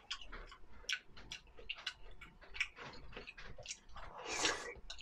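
Close-miked eating sounds: chewing with many small, irregular wet clicks and smacks of the mouth, and a louder rush of noise about four and a half seconds in.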